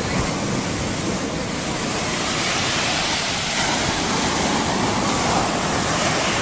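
Mediterranean surf washing onto a sandy beach: a steady rush of breaking waves that swells a little about two seconds in.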